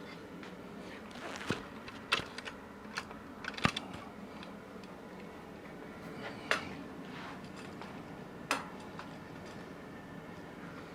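A handful of separate sharp clicks and knocks as band saw parts are handled and set back in place during reassembly: the throat plate, door and blade tension. A steady low hum sits underneath.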